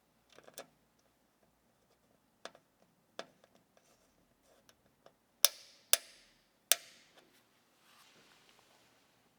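Computer hardware being handled, making a series of sharp clicks and taps. Three loud clicks come in quick succession a little past halfway, after softer taps.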